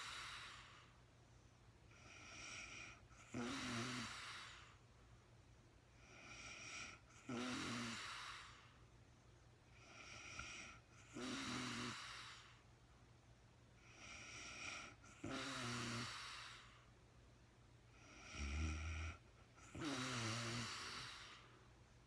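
A sleeping woman snoring in a slow, regular rhythm: about five breaths, roughly one every four seconds. Each breath is a short snore followed by a longer, louder one that falls in pitch. A brief low snort comes about three-quarters of the way through.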